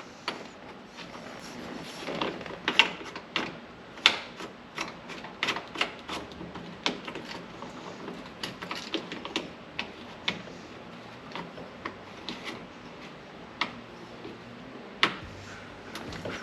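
Irregular sharp metallic clicks and taps of hand work on a Ford F-100 ignition switch, with the loudest snaps about 3 and 4 seconds in and near the end. These are the switch and its threaded bezel nut being fitted into the dash, with a screwdriver working on the bezel.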